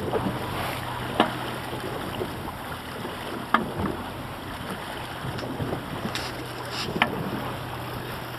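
Mercury outboard motor idling with a steady low hum under wind noise on the microphone. Three sharp knocks come about a second, three and a half and seven seconds in.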